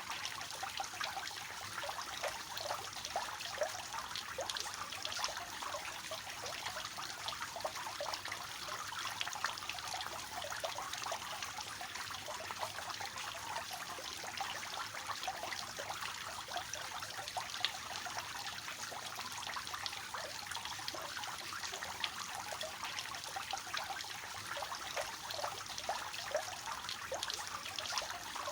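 Water from a three-tiered fountain falling and splashing into its basins: a steady trickling and splashing with many small droplet splashes.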